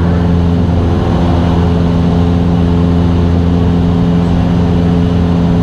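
Cessna 172S's Lycoming four-cylinder engine and two-blade propeller droning loud and steady in flight, heard from inside the cabin.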